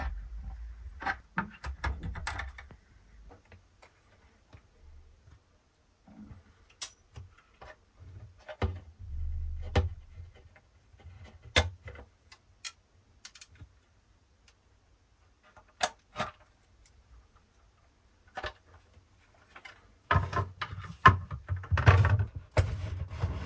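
Scattered clicks and light knocks of an Allen key working the terminal bolts and of the spot welder's metal casing and front panel being handled during disassembly, with a busier stretch of handling noise near the end.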